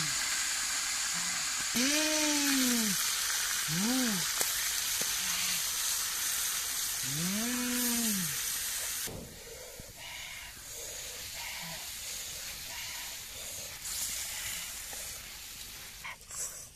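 Whole octopus frying in hot oil in a wok over a wood fire, sizzling loudly and then quieter from about halfway through, as a wooden spatula stirs it. Four short voice-like calls, each rising and falling in pitch, sound over the sizzle in the first half.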